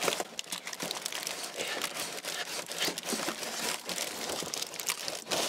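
Brown paper wrapping and cardboard crinkling and rustling in irregular bursts as a potted plant is lifted out of a shipping box.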